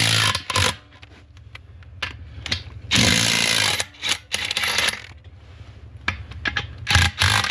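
An impact wrench hammering in short bursts, several times, on a seized tractor wheel lug nut. The nut is binding from galling, which the crew put down to it having been fitted without anti-seize.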